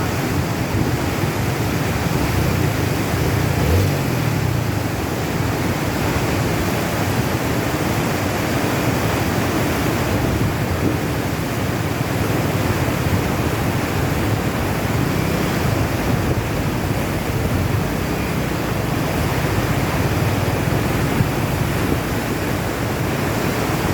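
Fast-flowing floodwater rushing steadily, an even noise without a break.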